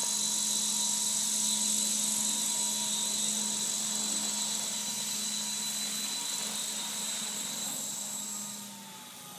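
Electric HobbyKing 600-size RC helicopter hovering: a steady high-pitched motor whine over the hum of the rotor blades. Near the end the whine falls in pitch and the sound gets quieter.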